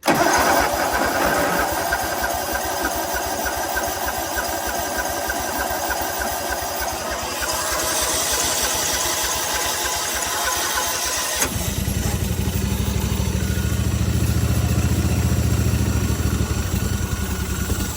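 A 60-inch mower's engine cranked on its starter from cold with the choke on, a fast even churning for about eleven seconds. About eleven seconds in it catches and runs rough and deep-toned for several seconds, then stops at the end, typical of a cold-blooded engine that has sat for weeks and needs a few tries.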